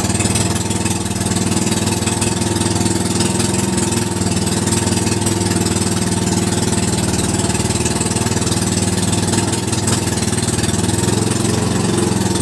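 Motorised outrigger boat's engine running steadily under way, a loud, even drone with no change in speed.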